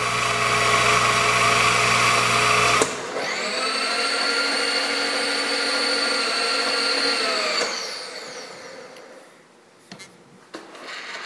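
A loud steady machine noise with a low hum cuts off suddenly about 3 s in. Then a vertical milling machine's spindle motor spins up to a steady whine, winds down after about 8 s, and starts again quietly near the end.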